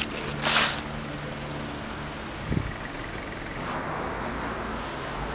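Road traffic: cars passing on the street as a steady rushing noise, a little louder in the second half. A short burst of noise about half a second in.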